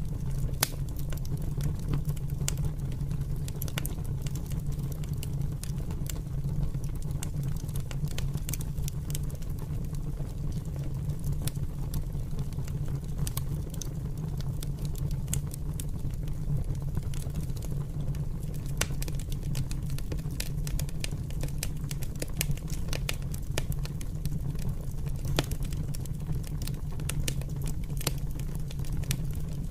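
Open fire crackling, with many sharp, irregular pops and snaps over a steady low rumble.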